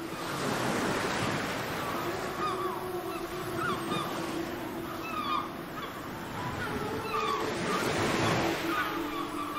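Waves washing up onto a sandy beach, one surge about half a second in and another near the end, with gulls calling over the surf.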